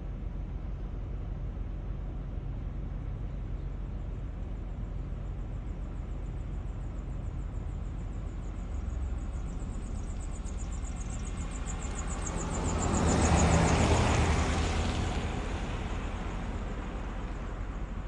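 A vehicle passing: a broad rushing sound that swells and fades over about five seconds, loudest about two-thirds of the way through, over a steady low outdoor rumble.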